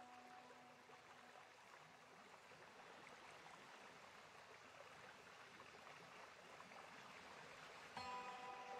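Faint background music: a soft held note dies away in the first second or so, leaving a low hiss, and a new held chord comes in suddenly about eight seconds in.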